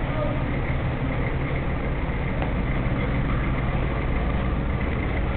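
Steady low rumble of street traffic, with vehicle engines running and idling.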